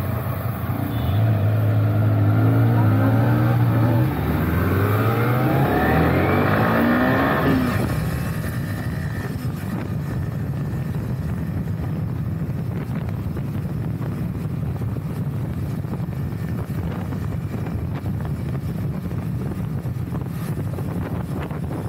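Motorcycle engine held at a steady note for a few seconds, then revving up in several rising sweeps as it accelerates away. It gives way, about seven seconds in, to a steady rush of wind and engine noise while riding.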